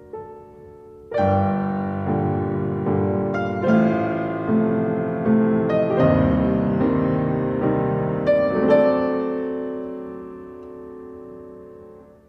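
Piano music: a chord struck about a second in, more notes and chords through the middle, then a long fade near the end.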